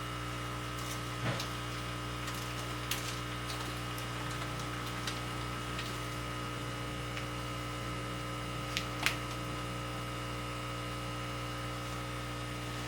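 Steady electrical hum from fish room equipment, several fixed tones at once, with a few faint clicks.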